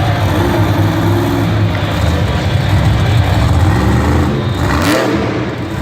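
Monster truck's supercharged V8 engine running loud and revving, with a rising rev near the end.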